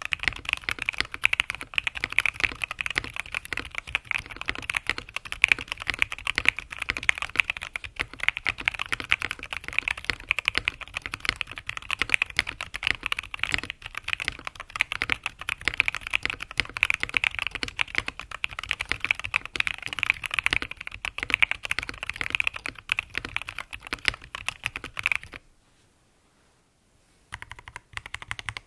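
Fast typing on a Mini Cat64 mechanical keyboard with linear switches: a dense stream of keystrokes that stops for about two seconds near the end, then starts again.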